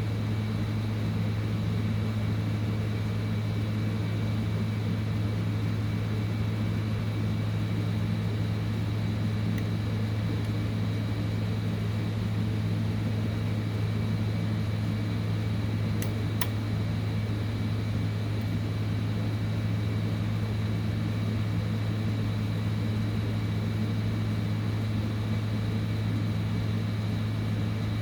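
Hot-air heat gun blowing steadily, its fan motor running with a constant low hum and hiss while it heats a MOSFET chip on the hashboard to loosen its solder. Two faint clicks about midway.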